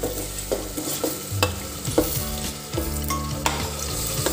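Marinated chicken and potatoes sizzling as they are scraped into hot oil and tomato masala in an aluminium pressure cooker. A steel spoon knocks and scrapes against the plate and pot rim about eight times.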